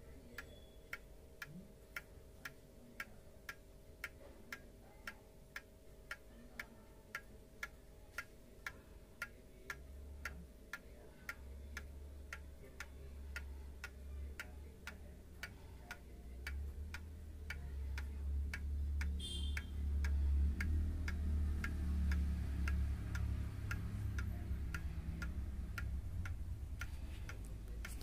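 The pendulum movement of a 1960 Seiko (Seikosha) 30-day perpetual calendar wall clock ticking steadily, about two ticks a second. From about ten seconds in, a low rumble rises under the ticking and is loudest in the second half.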